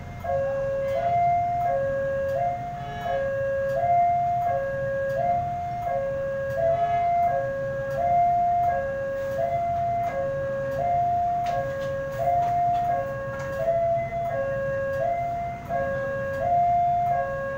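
Railway level-crossing warning alarm sounding a two-tone electronic chime, high then low, about once every second and a half without a break, which signals that the barrier is down for an approaching train. Under it runs a low rumble of motor traffic.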